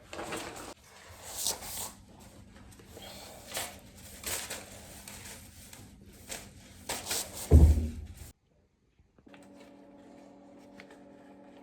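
Scraping, brushing and clinking of broken mirror glass being swept up with a shoe brush, with a heavy thump about three quarters of the way in. The sound then cuts off abruptly, and soft music comes in faintly near the end.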